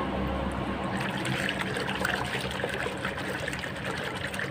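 Muddy water sloshing and splashing in a plastic basin as a hand swishes and scrubs a toy figure around in it, a continuous run of small irregular splashes.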